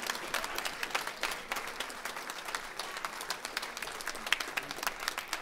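Audience applauding: many people clapping together, steady and dense.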